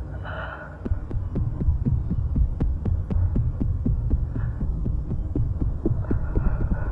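Low, fast pulsing throb over a steady hum, about four to five beats a second, starting about a second in: a heartbeat-like soundtrack effect.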